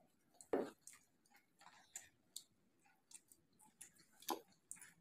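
Close-up chewing of crisp fried samosa pastry: a crunchy bite about half a second in, then scattered small clicks and crackles as it is chewed, with another stronger crunch near the end.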